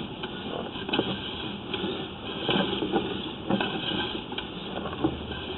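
Sewer inspection camera's push cable being fed down the line, with irregular knocks and rattles over a steady hiss.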